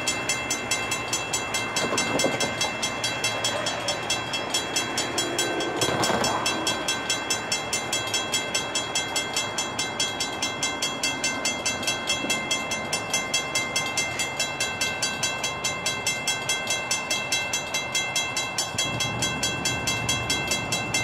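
Mechanical railroad grade-crossing bell ringing steadily at about three strokes a second, the crossing activated for an approaching train. A distant train horn sounds briefly about six seconds in.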